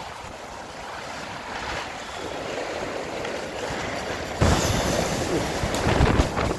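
Strong wind gusting and building. About four seconds in, a hard gust starts buffeting the microphone with a deep rumble.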